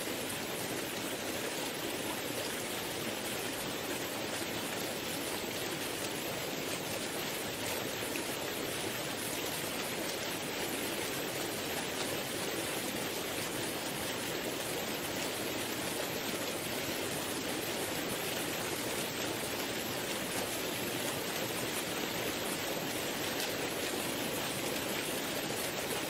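Waterfall spilling into a river with water rushing over shallow rapids: a steady, unbroken rush.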